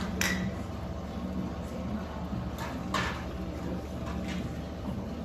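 Restaurant room noise: a steady low hum with a few short knocks or clinks, one just after the start and another about three seconds in.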